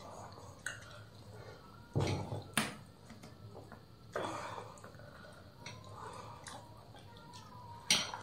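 Two people eating rice and mutton curry with their fingers off a banana leaf: chewing and fingers squishing wet rice against the leaf, with four sharp smacks about two, two and a half, four and eight seconds in.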